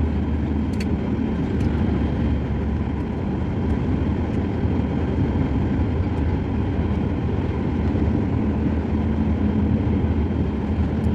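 Airliner cabin noise during the landing: a steady low rumble of the Boeing 737 MAX's engines and airflow, with a few faint ticks about a second in.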